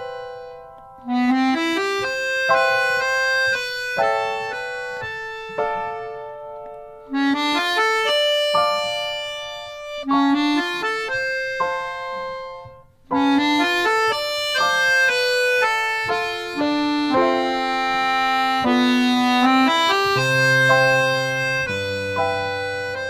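Instrumental background music: a melody of held notes in short phrases that break off and start again every few seconds, often sliding up into a note. Low bass notes come in near the end.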